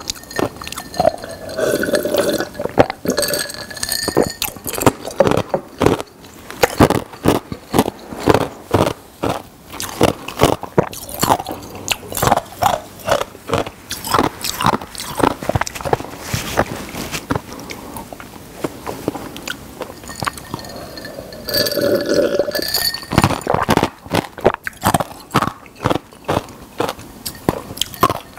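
Close-miked eating sounds: wet chewing, smacking and crunching of food in the mouth, with two spells of gulping from a glass of soft drink, one just after the start and one about three-quarters of the way through.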